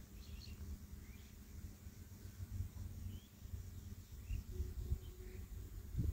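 Quiet workshop background: a low rumble with small handling sounds from hands working on the machine, a faint steady hum, and a few faint short high chirps. The cutter's motor is not running.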